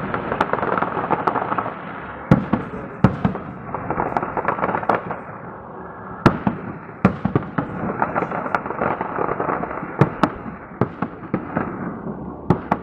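Salute fireworks display: about a dozen sharp bangs from bursting shells at irregular intervals, over continuous dense crackling.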